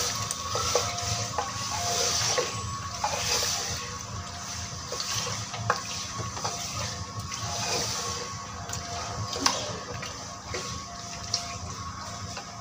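Tripe, onions and ginger-garlic paste sizzling wetly in hot oil in a pressure cooker, stirred with a silicone spatula that knocks and scrapes against the pot several times.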